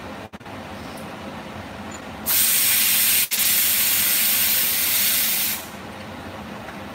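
Pressure cooker venting steam as its weight valve is lifted by hand: a loud, even hiss of about three seconds that starts about two seconds in and breaks off for an instant partway through. This is the manual pressure release before the cooker is opened.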